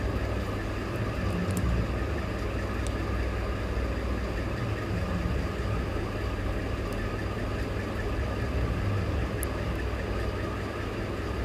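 Electric sewing machine running steadily as it stitches a seam through layered fabric and canvas, a continuous even motor hum.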